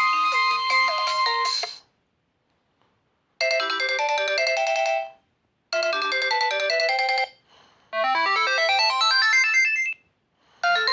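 Sony Ericsson J110i ringtones played through a Nokia C2-01 phone's loudspeaker: an electronic tune ends about two seconds in. After a short silence come three short phrases with brief gaps between them, the last a rising and falling run of notes, and another tune starts near the end.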